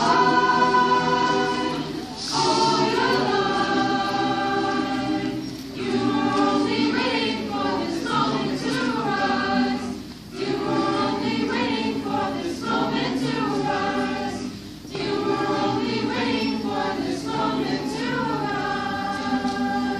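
Mixed-voice choir singing in sustained chords. The phrases are separated by brief breaks every four or five seconds.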